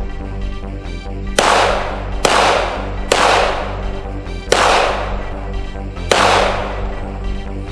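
Five gunshots at uneven intervals, each with a long fading echo, over steady background music.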